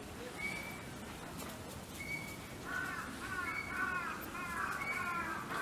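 A crow cawing in a quick run of about six calls, roughly two a second, starting about halfway through.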